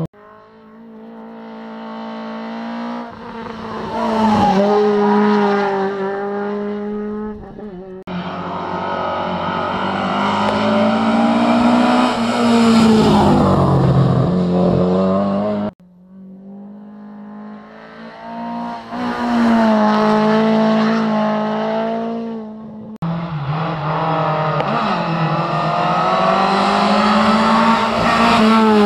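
Rally cars at full throttle on a rallysprint stage. Each engine climbs in pitch through the gears and drops as the car goes by. This plays as a series of short clips that break off abruptly, about every eight seconds.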